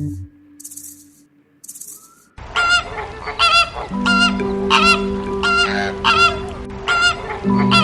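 Goose honking over and over, about two honks a second, starting about a third of the way in, with a steady background music tone underneath.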